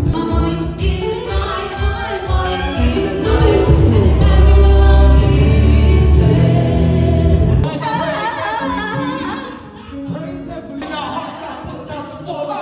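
Gospel choir singing with a band, with a heavy bass underneath. About three-quarters of the way through, the bass and band drop out and the voices carry on alone, quieter, with a wavering vibrato.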